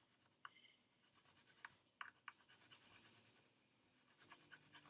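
Faint scratching of coloring on a paper cut-out: a few separate light taps and scratches, then from near the end a quick back-and-forth scribbling, several strokes a second.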